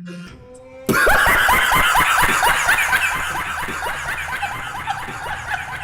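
A man's rapid, high-pitched laugh used as a meme sound effect. It starts suddenly about a second in and goes on loudly as quick repeated squeals, each falling in pitch, about four a second.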